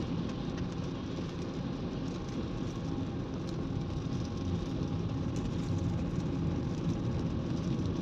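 Steady engine and road noise heard inside a moving car, tyres running on a wet road, with faint scattered ticks.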